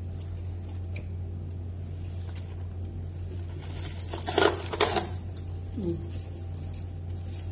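Brief crinkling rustle of something being handled, as of plastic wrapping, about four to five seconds in, over a steady low hum.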